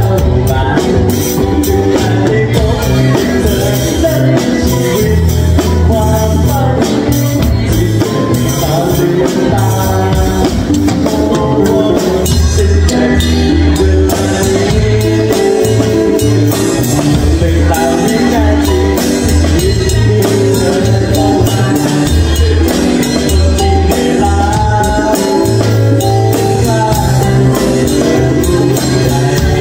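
Live band music: a Yamaha drum kit played with sticks, quick drum and cymbal hits keeping a steady beat, over a moving bass line and guitar melody.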